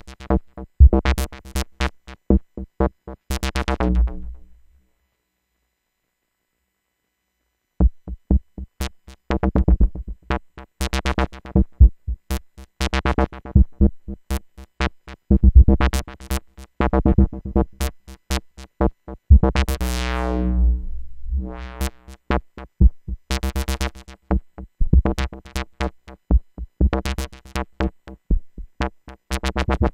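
Eurorack modular synthesizer: a square-wave oscillator through a low-pass filter and VCA, played as rapid short plucks on one low pitch, each note shaped by the ENV-310 envelope opening the filter and the VCA, with 1-bit delay ambience. The notes stop for about three seconds near the start, and around the middle a longer note sweeps from bright to dull.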